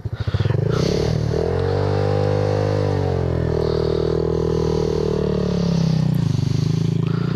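Honda Grom's small single-cylinder engine revving up and easing off a couple of times as it pulls away in gear.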